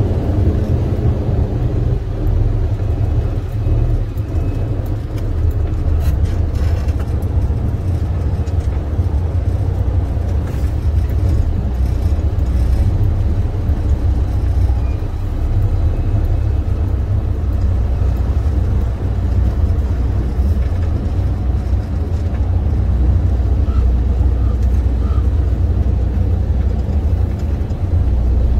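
Semi truck's diesel engine running with a steady low rumble, heard from inside the cab.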